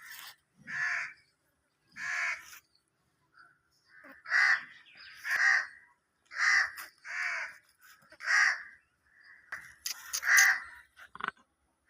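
Crow cawing over and over, about ten short harsh caws roughly a second apart.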